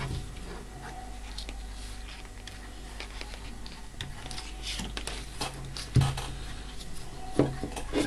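Handling noise of a plastic clamp meter and its test leads being shifted and set against the bench: rustling and small clicks, with a few sharper knocks in the last two seconds, over a steady low hum.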